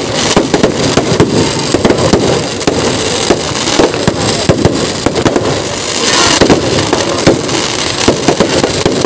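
Fireworks going off: a dense, rapid, uneven string of firecracker bangs and crackles with no pause.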